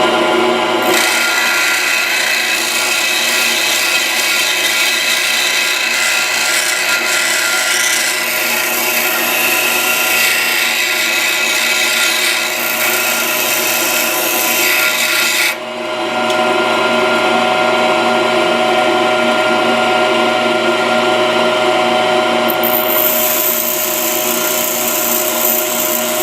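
Pedestal grinder running steadily while a high-speed steel lathe tool bit is pressed against the wheel, a harsh grinding hiss over the motor's hum. The hiss starts about a second in, breaks off briefly around the middle as the bit is lifted, then carries on.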